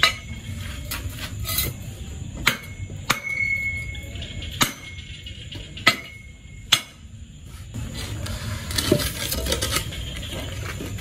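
Metal pipe rammed down inside an upright bamboo tube to punch through its inner nodes for an eel trap: irregular sharp knocks, about seven in the first seven seconds, a couple of them with a brief metallic ring.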